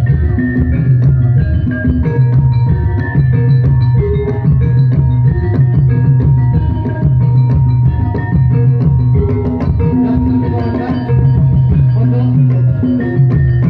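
Javanese gamelan playing jathilan dance music: drums and tuned bronze percussion over a repeating low note pattern, steady and loud, amplified through loudspeakers.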